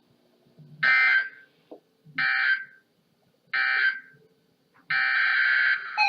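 Emergency Alert System SAME digital data bursts on weather radio: three short, identical screeching bursts about a second and a half apart, the end-of-message signal that closes the warning. A longer burst starts about five seconds in.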